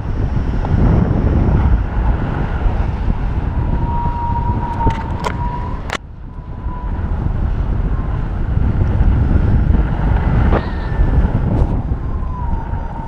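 Airflow buffeting the camera microphone during paraglider flight, a constant rumbling rush of wind. A thin steady tone comes and goes twice, and a few sharp clicks or knocks sound from the harness or camera mount.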